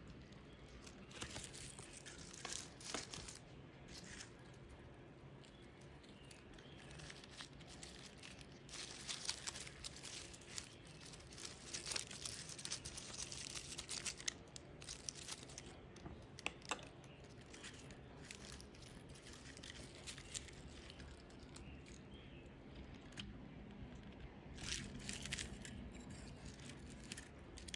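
Hands rustling and crackling through dry orchid bark chips and the papery old sheaths and roots of a Cattleya as it is pulled from its potting mix, in irregular small bursts that are busiest in the middle and again near the end.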